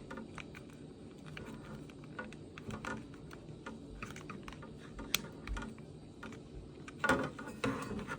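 Light, irregular clicks and taps of small plastic and metal parts being handled as a ceiling fan's light kit is plugged in and fitted to the fan housing. The clicking gets busier near the end.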